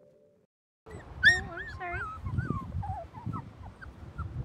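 Three-week-old Siberian Husky puppies whimpering: a run of short, high, wavering squeals starting about a second in, the first the loudest, tapering into fainter whines.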